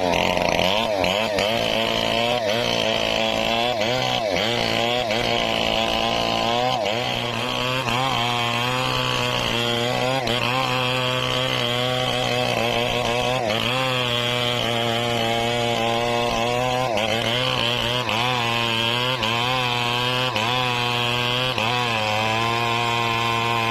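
Stihl 070 two-stroke chainsaw running under load, cutting into rain tree (trembesi) wood, its engine pitch dipping and recovering again and again as it cuts.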